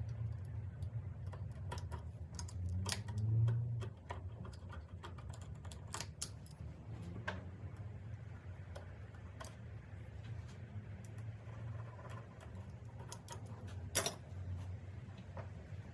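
Scattered light clicks and taps of hand tools and small metal parts being handled during engine work, over a steady low hum. One sharper click stands out near the end.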